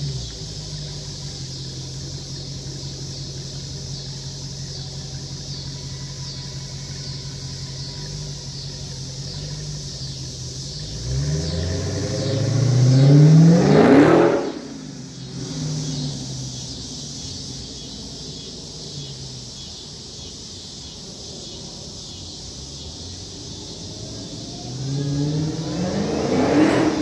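Dodge Charger Hellcat's supercharged V8 running off in the distance at a steady low note, then accelerating hard about halfway through, rising in pitch to a loud pass-by that falls away quickly. Near the end it revs up and swells again as it comes back around.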